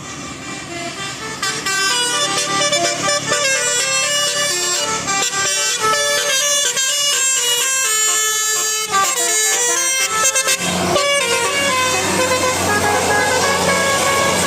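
Indonesian bus 'telolet' horn, a Basuri multi-tone air horn, playing a quick melody of stepped notes for about ten seconds. A lower, steadier drone then takes over, with a few horn tones over it.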